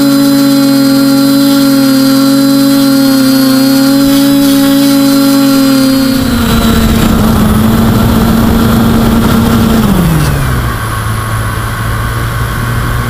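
TBS Discovery quadcopter's brushless motors and propellers, heard from its own onboard camera: a loud, steady hum while it hovers, turning rougher and noisier about six seconds in as it sets down in the grass. About ten seconds in the pitch glides down to a low drone as the motors spin down after landing.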